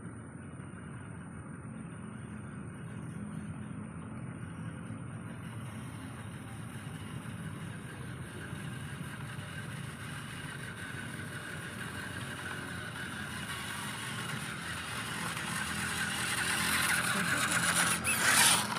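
Small radio-controlled WPL C24-1 scale trucks driving on a dirt path, a steady electric motor and gear whine that grows louder as they approach and is loudest near the end as one reaches the camera.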